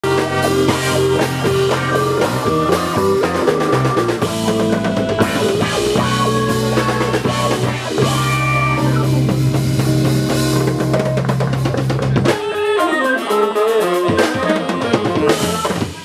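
Live band with drum kit and guitar playing the close of a song. The low notes drop out about three-quarters of the way through, and the song ends on a last loud hit.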